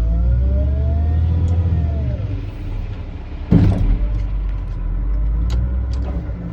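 Excavator engine running, with a tone rising and then falling in pitch over the first two seconds as the engine eases off; a single loud bang about three and a half seconds in, then a few scattered knocks.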